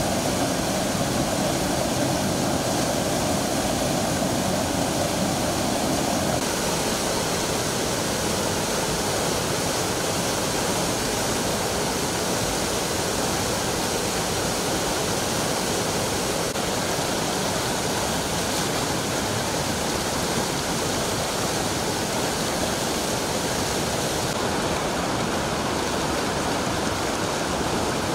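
Muddy floodwater rushing in a steady torrent, a little deeper for the first six seconds or so.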